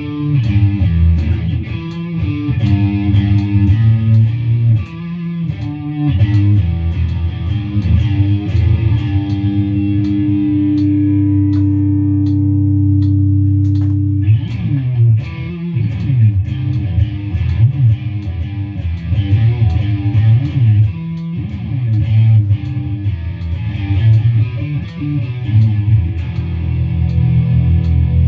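Electric guitar played through an amplifier: rhythmic chords and riffs, with one chord left ringing for about four seconds near the middle before the playing turns choppy again.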